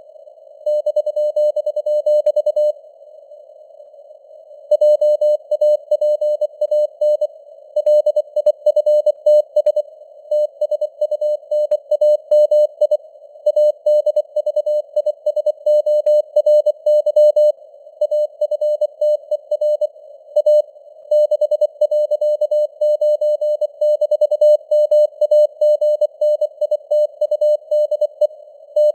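Morse code (CW) tone keyed in rapid dots and dashes at 24 words per minute, over a faint hiss of simulated radio noise, with the signal strength varying as in QSB fading. The keying pauses for about two seconds near the start, then resumes.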